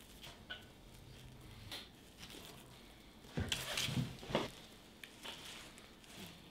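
Soft rustling and crinkling of dry raffia strands and cedar foliage as raffia is wound around a young Blue Atlas cedar's trunk, with a louder flurry of rustles and handling knocks about three and a half seconds in.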